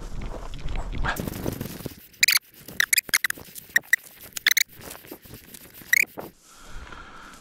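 A hunting dog pushing through dry grass stubble, rustling, with a run of short, sharp high squeaks from about two seconds in to near the end.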